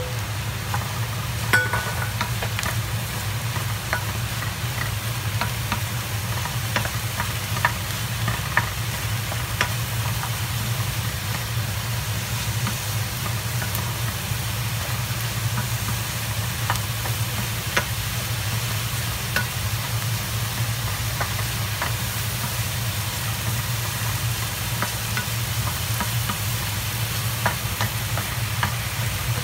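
Sliced mushrooms and onion sizzling in a stainless steel frying pan while a wooden spoon stirs them, knocking and scraping against the pan now and then. A steady low hum runs underneath.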